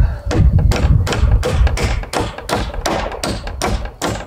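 Claw hammer driving a nail at an angle into a pair of 6x2 timbers, skew-nailing them together into one beam, with rapid even blows about four or five a second that ease off slightly near the end.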